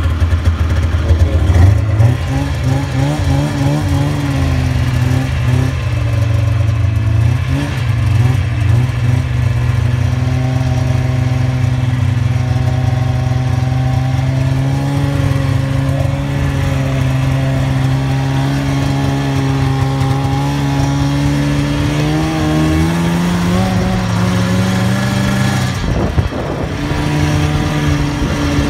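Snowmobile engine running under throttle: it revs up about two seconds in, then holds a steady pitch at speed, rises a little, drops off briefly near the end and picks up again.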